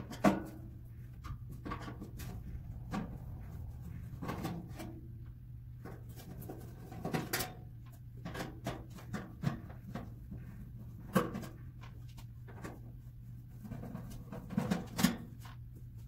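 Scattered clicks, taps and knocks of a screwdriver and hands working on the sheet-metal back of a toaster oven to take it apart, over a steady low hum.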